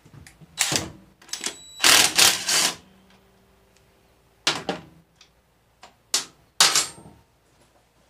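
Metal hand tools and parts clanking against the spokes and axle of a small dirt bike's rear wheel during axle-nut removal: about five clusters of sharp metallic clinks, the loudest about two seconds in with a brief high ring.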